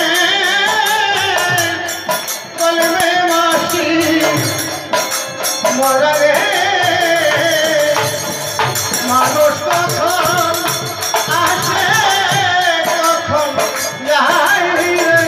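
Bengali devotional kirtan: men singing a melody to the khol barrel drum and harmonium, over a steady beat of percussion strokes.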